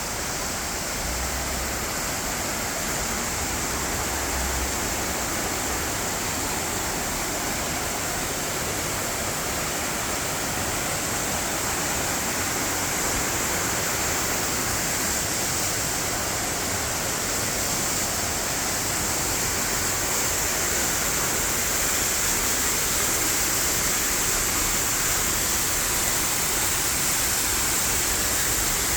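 Steady rush of falling water from a waterfall, slowly getting a little louder.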